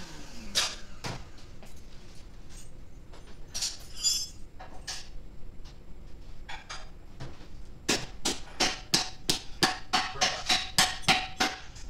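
A shop vacuum motor winds down at the very start. Then come scattered knocks and clatter, and from about eight seconds in a quick run of a dozen or more sharp strikes, about four a second, with a metallic ring under them.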